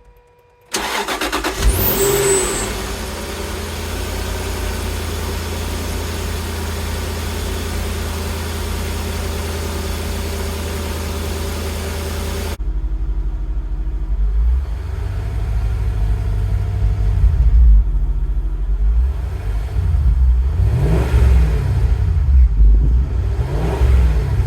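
Stock 2005 Jaguar XK8's 4.2-litre V8 with unmodified exhaust starting up: it fires about a second in, flares briefly, then settles to a steady idle. After an abrupt change in the sound about halfway, the engine is revved several times, each rev rising and falling back.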